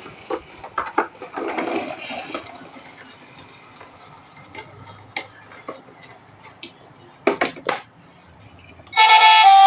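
Toy bus being handled: scattered clicks, knocks and rattles, with three sharp knocks in quick succession about seven and a half seconds in. A loud tune starts about a second before the end.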